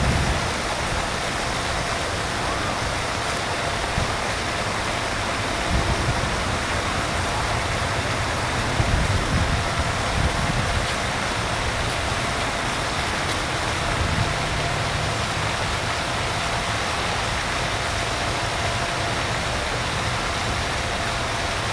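Steady wind noise on the microphone: an even hiss with low buffeting swells about 6, 9 and 14 seconds in.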